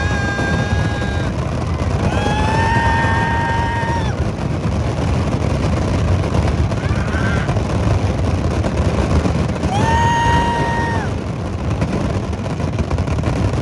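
Long horn blasts over a steady, dense rumble of outdoor noise. One blast ends about a second in, another sounds for about two seconds a couple of seconds later, and a third comes near the end.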